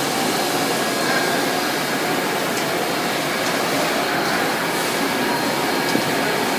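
Steady machinery noise of a factory floor with a few faint clicks.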